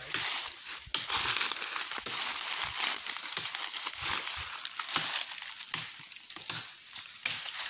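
Irregular crunching and rustling of dry leaves and branches, with many short sharp cracks.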